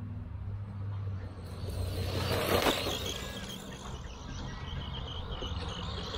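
Brushed 390-size electric motor and drivetrain of a 1/14-scale RC pickup truck running as it accelerates across grass. The sound is loudest about two and a half seconds in, then settles into a steady high whine.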